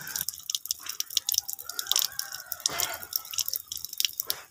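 Water running from a plastic outdoor tap and splashing onto a wet concrete slab as hands are washed under the stream, with a steady patter of irregular drips and spatters.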